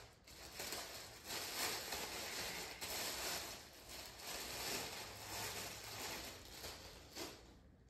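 Clear plastic bag crinkling and rustling in uneven swells, with a few sharp clicks, as it is pulled off a statue.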